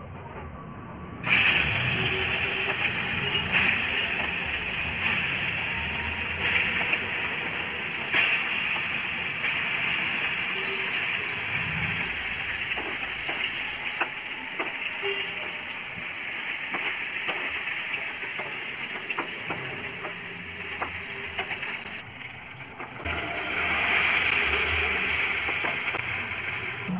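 Whole koi (climbing perch) sizzling in hot oil in a pan. The sizzle starts suddenly about a second in as the fish go into the oil, a steady hiss scattered with pops and crackles of spattering oil. It drops out briefly near the end and then comes back.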